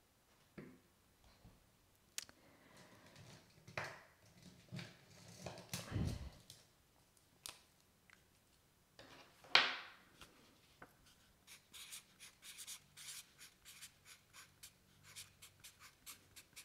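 Marker pen writing on paper, with rustling and handling close to a lapel microphone. A sharp, loud rustle comes in the middle, then a quick run of short scratchy strokes, about four a second, through the second half.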